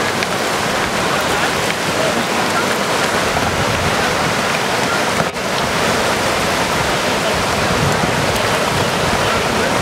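Whitewater river rapids rushing, a loud steady wash of water noise, broken only by a brief dip about five seconds in.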